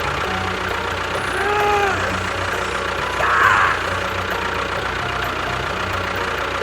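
An engine running steadily with a low pulsing chug. Two short tones rise and fall over it, about one and a half and three and a half seconds in.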